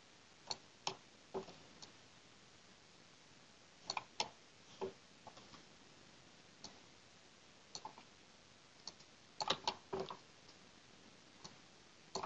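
Faint computer mouse clicks, irregular: single clicks and quick pairs, with a close group of several about nine and a half seconds in, each click placing another joint with the joint tool. Low steady hiss underneath.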